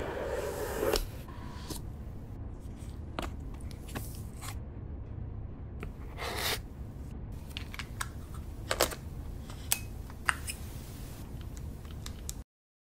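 Close-up handling sounds of a camera-lens unboxing: a cardboard box lid rubbing and sliding open, packaging and foam scraping, and scattered sharp clicks and taps as the metal 7Artisans 12mm T2.9 cine lens and camera body are handled. A low steady hum runs underneath, and the sound cuts off to silence just before the end.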